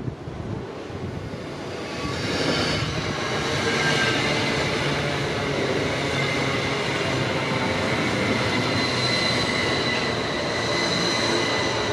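A train running past on the line, its noise swelling about two seconds in and then holding steady, with a high whine over the rumble of the wheels.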